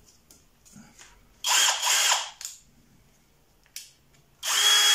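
Parkside X12V Performance brushless cordless drill/driver running in two short bursts of about a second each, with a high whine and a sharp click between them. The first-gear selection has not engaged, so the gearbox spins as if in neutral; the owner first suspects the clutch.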